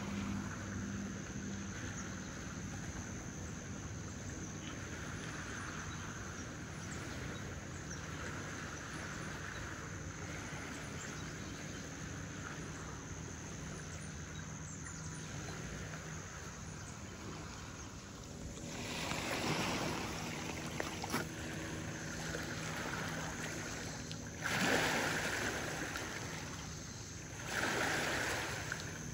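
Lakeshore ambience: a steady outdoor rush of wind and water, with three louder rushing swells in the second half, each a second or two long.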